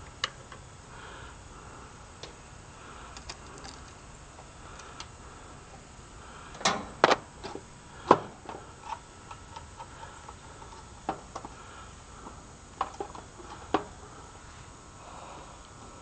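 Scattered small metal clinks and taps of a perforated steel plumbing strap and a screwdriver against an air-conditioner condenser's sheet-metal cabinet as a run capacitor is strapped in place. A cluster of sharper clicks comes about six to eight seconds in.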